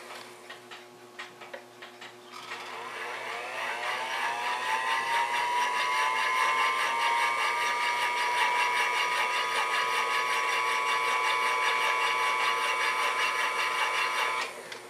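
Belt-driven 8 mm watchmaker's lathe with a pivot-polishing attachment: its motor spins up about two seconds in with a rising whine that levels off, runs steadily while polishing a clock pivot, then stops suddenly near the end.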